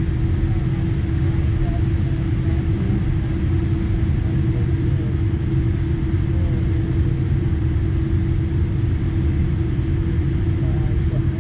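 Cabin noise inside a Boeing 787 Dreamliner taxiing: a steady low rumble from the GE GEnx engines and the rolling airframe, with a constant hum.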